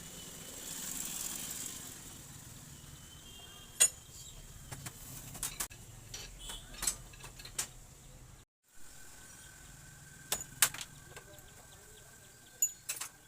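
A short hiss, then a run of sharp metallic clicks and clinks as tools and steel parts of a motorcycle rear mono-shock absorber are handled during its cleaning and repair.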